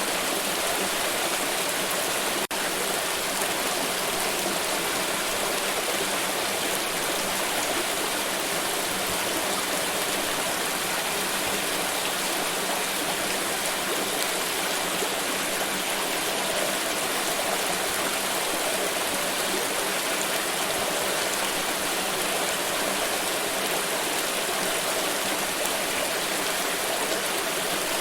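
Water flowing steadily: an even, unbroken rushing.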